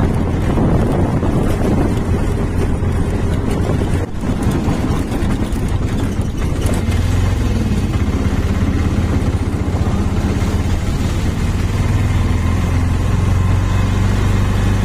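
Auto-rickshaw engine running steadily while driving on the road, a low drone with road and wind noise over it.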